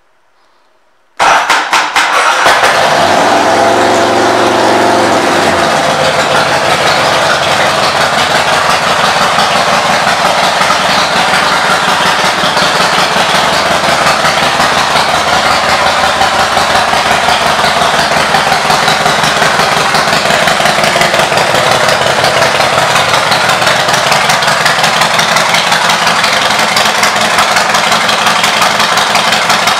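2007 Big Dog K-9's V-twin engine with Vance & Hines pipes starting about a second in and catching at once. It runs at a raised idle for a few seconds, then settles into a steady, even, loping idle.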